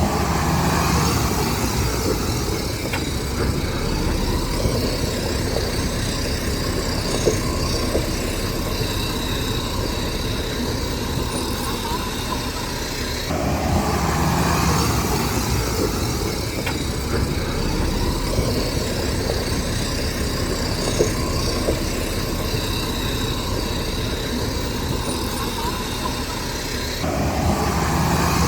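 Heavy diesel earthmoving machinery running steadily, growing louder for a couple of seconds twice, about halfway through and near the end.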